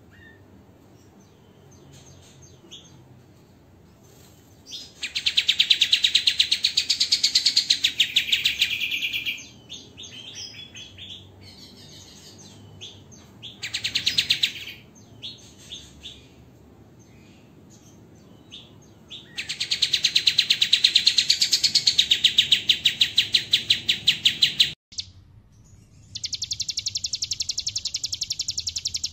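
Cage songbird song made of dense, harsh rapid-fire trills ('tembakan'): four long bursts of very fast repeated high notes, with softer scattered chirps between. About 25 s in the sound cuts off abruptly and a new trill starts a second later.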